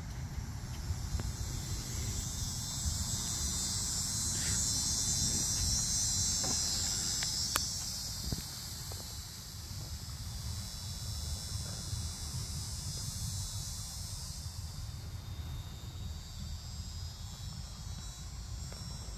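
Insects buzzing in a high, even drone that swells over the first few seconds and fades away after about fifteen seconds, over a steady low rumble, with one sharp click about halfway through.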